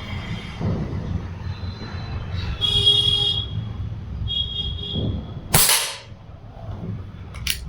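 A single shot from a Precihole PX100 Achilles PCP air rifle firing a JSB 8.44-grain pellet: one sharp crack about five and a half seconds in. Before it, a brief high-pitched tone sounds twice.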